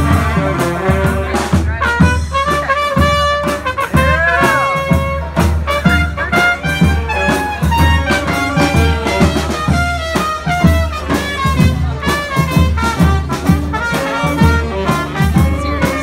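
Brass band playing live: trumpet, saxophones and trombone carry the tune over a sousaphone bass line and a steady drum beat, with some bent notes about four seconds in.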